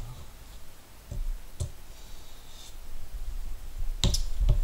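Handling noise as a knife and a steel ruler are set down on a cutting mat: a couple of light clicks, then a louder cluster of knocks near the end.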